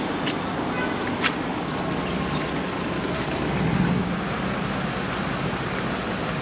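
City street traffic noise, with a vehicle engine running steadily underneath and a single click about a second in.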